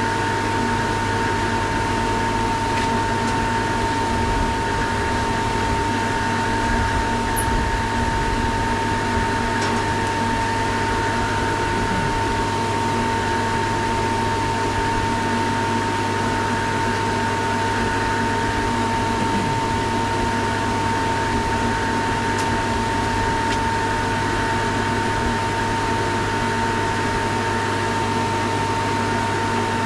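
Refrigerant recovery machine running steadily, a constant hum with a steady whining tone, pulling liquid refrigerant from the chiller's receiver into a recovery tank.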